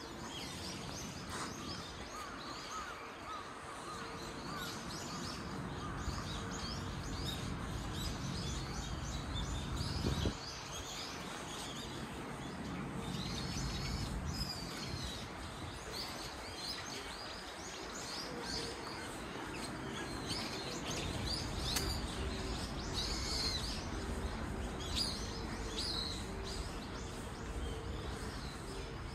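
Small birds chirping and calling over and over, busiest in the second half, over a steady low background hum. A brief thump about ten seconds in.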